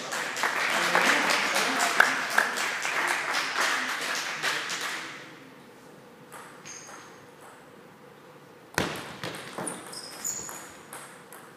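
Spectators clapping and cheering for about five seconds after a point in a table tennis match. Then, from near the end, the light knocks of a celluloid table tennis ball on bats and table during a rally, with short high shoe squeaks on the hall floor.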